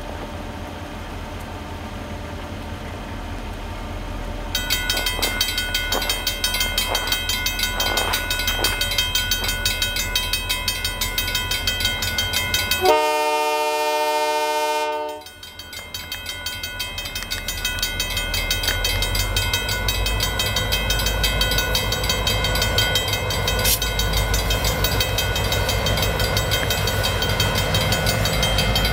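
Canadian Pacific GP38-2 diesel locomotives approach with their engines rumbling louder as they close in. A high ringing tone carries on from about four seconds in. One horn blast of about two seconds comes roughly halfway through.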